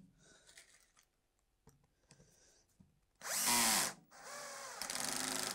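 Cordless drill driving wood screws through a hardwood runner into a melamine-faced panel. After a few faint clicks, the motor whines in two runs: a short, louder one about three seconds in whose pitch rises and falls, then a longer one near the end.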